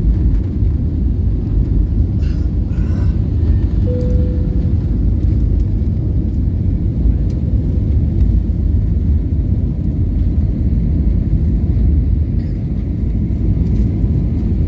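Jet airliner engine and airflow noise heard inside the passenger cabin during the climb just after takeoff: a loud, steady low rumble. A brief single tone sounds about four seconds in.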